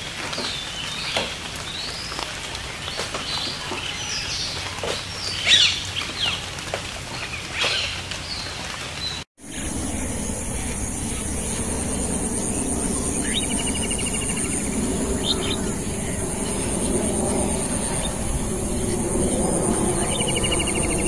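Birds chirping and calling over a steady outdoor hiss. About nine seconds in, the sound cuts to a steady, high-pitched pulsing trill over a low rumble.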